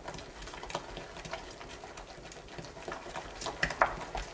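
Spatula stirring thick hot-process shave soap paste in a small ceramic crock pot, the soap close to vaseline stage: irregular soft squelches and small clicks, loudest a little before the end.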